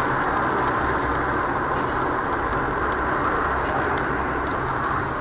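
Steady engine and road noise inside a moving car, picked up by a dashcam.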